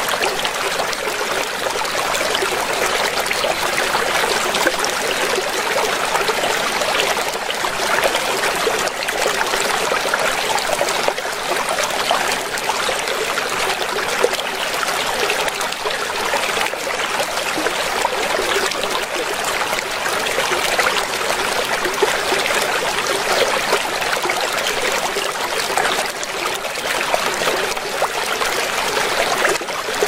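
Stream water running and splashing over rocks, a steady rush with no breaks.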